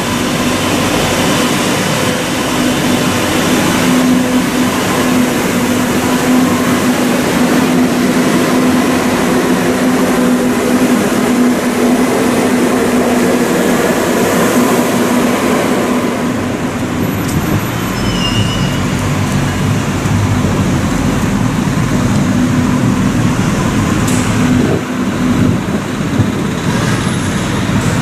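Madrid Metro train running through an underground station: a steady rumble of wheels on rail with a steady hum from the train's motors.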